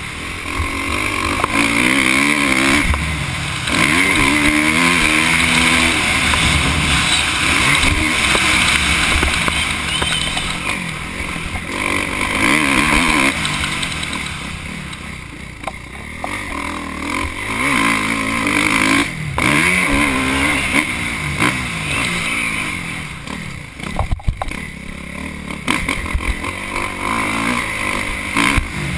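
Kawasaki KX450F four-stroke single-cylinder motocross bike engine revving up and down through the gears, easing off briefly several times and climbing again. Wind rushes over the helmet microphone.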